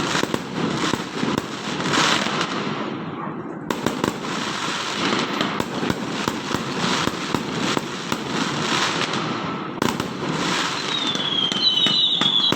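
Many New Year's fireworks and firecrackers going off at once, a dense, continuous crackle of pops and bangs. Near the end, several high whistles falling slightly in pitch join in.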